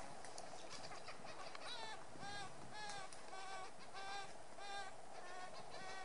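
Magellanic woodpecker calling: a steady series of repeated calls, a bit under two a second, starting about two seconds in. A few faint taps come before the calls begin.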